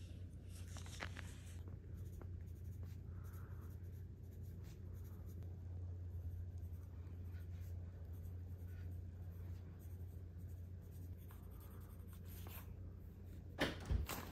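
Pencil writing on notebook paper, faint scratching strokes over a steady low hum. Near the end come two sharp knocks in quick succession, the loudest sounds.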